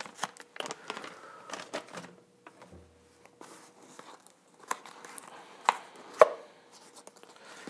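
Kitchen handling sounds: food packaging rustling amid scattered light clicks and knocks of a metal spoon and containers on the counter, with two sharper knocks about six seconds in.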